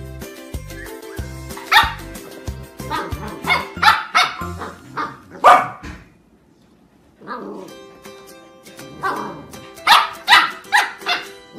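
Puppies barking and yapping in short sharp barks over background music. The sound drops out briefly about six seconds in. After that a fluffy white puppy barks several times in quick succession at a larger dog.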